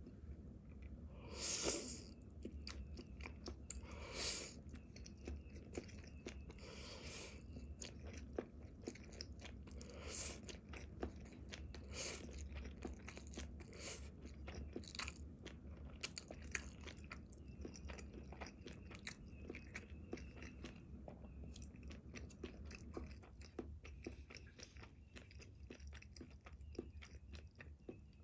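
A person eating spaghetti close to the microphone: chewing and mouth clicks throughout, with several louder bursts every two to three seconds in the first half.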